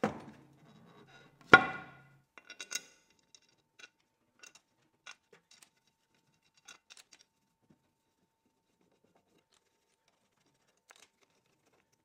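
Metal parts handled: a knock at the start and a louder metallic clank about a second and a half in, both ringing briefly, then a run of light metallic clicks and taps, as a lathe gearbox cover plate and its screws are fitted.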